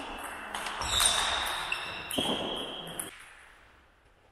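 Table tennis rally: the celluloid ball clicking off the bats and table, with the hits echoing through a large gym hall. The sound dies away near the end.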